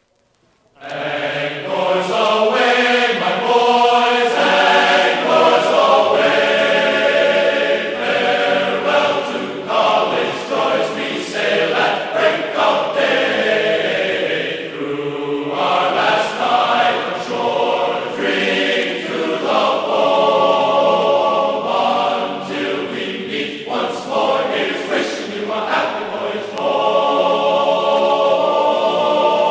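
A chorus of voices chanting in sustained, held notes, starting about a second in.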